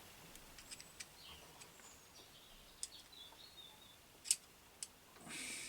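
Mostly quiet room tone with a few light clicks, the sharpest about four seconds in, and faint bird chirps in the background.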